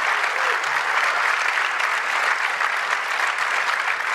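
Audience applauding, a steady dense clapping from a large room full of people.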